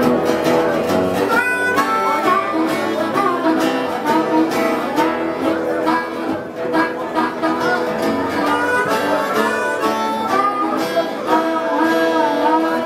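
Blues harmonica solo played cupped against a microphone, its notes bending and wailing, over strummed acoustic guitar.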